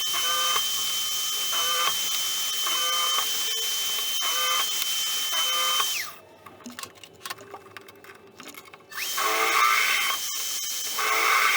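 Electric power tool running with a steady high whine and a repeating pattern about every second, cutting out about six seconds in and starting again some three seconds later.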